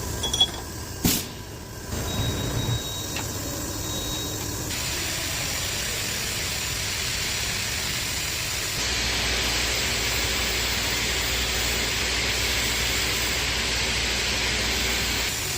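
CNC vertical milling machine at work: a couple of sharp knocks, then steady machine noise with a thin high whine for a few seconds. About nine seconds in it turns to a louder, steady hiss over a low hum.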